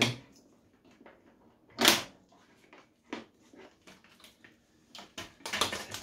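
Scattered knocks and clicks of hard plastic being handled on a wet-and-dry vacuum's head and fittings, with the motor not running. A single loud knock comes about two seconds in, and a quick run of clatters comes near the end.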